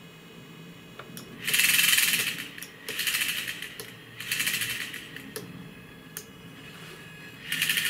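Aircraft engine temperature indicator's AC servo motor and gear train whirring in four short spurts, each under a second, as the needle and mechanical digit counter are driven to follow each step up in the simulated thermocouple temperature. Light clicks of the simulator's push-buttons come between the spurts.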